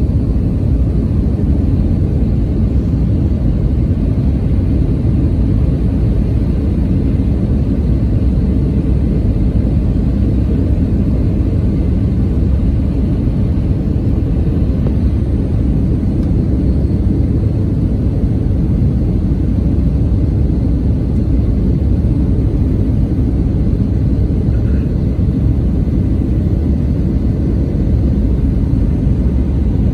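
Steady low rumble of jet engine and airflow noise heard inside the cabin of an Airbus A320 airliner from a window seat over the wing, descending on approach to land.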